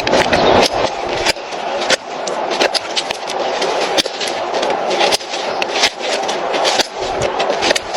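Farrier's hand tools scraping and paring a horse's hoof: a continuous rough scraping with frequent sharp clicks.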